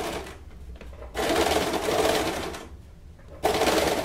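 Domestic electric sewing machine stitching bias binding onto a bra cup in short runs: it stops just after the start, runs again for about a second and a half, then starts up again near the end.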